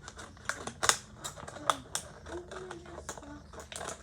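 Scissors snipping through a thin plastic water bottle: a run of irregular sharp clicks, several a second.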